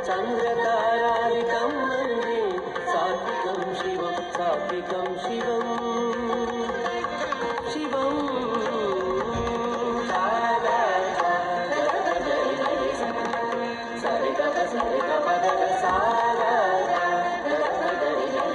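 Recorded Carnatic music accompanying a Bharatanatyam dance: a melody full of pitch slides and ornaments over light drum strokes.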